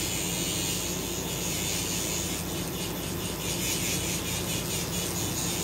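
Small battery-powered handheld mixer running with a steady whir as it blends Refectocil eyebrow tint with its developer.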